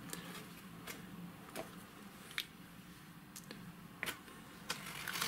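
Faint, scattered light clicks and taps, about half a dozen over a few seconds, from handling the metal chassis of an avionics unit during disassembly.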